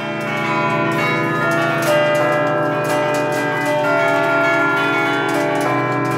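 Church bells played from a wooden hand keyboard, the clappers pulled by chains, ringing a fast festive peal (suonata solenne) of many overlapping strikes. A deeper bell comes in more strongly near the end.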